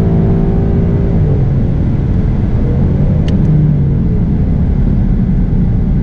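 A V8 car's engine heard from inside the cabin, holding a steady high-rev note and then dropping in pitch a little over a second in as the car lifts off past the drag strip finish line. It then coasts down with a steady low road rumble, the engine note swelling briefly about three and a half seconds in.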